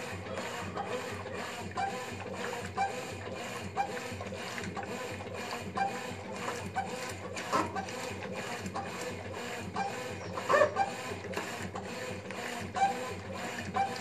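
Brastemp top-load washing machine agitating a load in water: the agitator swings back and forth in a steady mechanical rhythm of about one stroke a second, the clothes swishing with it and a few louder knocks along the way.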